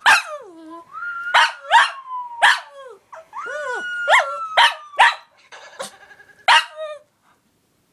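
Pekingese dog barking in about nine sharp yips, with long whining cries drawn out between them.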